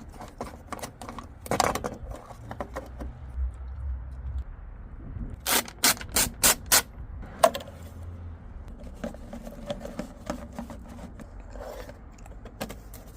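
Handling sounds: scattered clicks and knocks with some scraping, including four sharp clicks in quick succession about halfway through and another shortly after.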